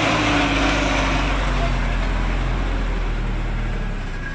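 Thaco Forland dump truck's diesel engine running as the truck rolls slowly past at close range, a steady low hum with a rough noisy layer on top, easing off slightly near the end.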